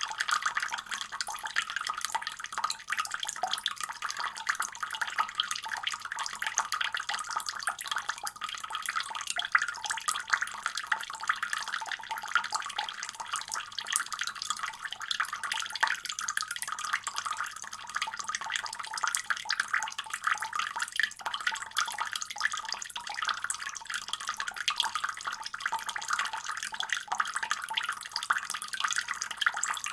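Water running steadily from a faucet in a continuous splashing stream, a bright hiss with little low rumble and no change in flow.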